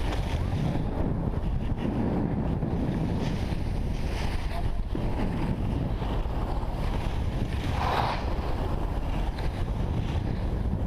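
Steady wind rumble buffeting a GoPro action camera's microphone as it moves downhill with a skier, under the hiss of skis sliding on packed snow. A short higher-pitched sound stands out about eight seconds in.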